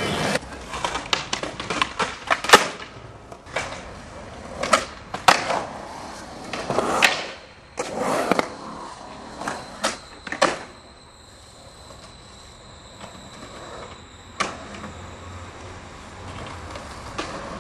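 Skateboards on concrete: urethane wheels rolling, with a string of sharp wooden clacks and knocks from boards popping, slapping down and landing tricks. It goes quieter, mostly rolling, a little past halfway.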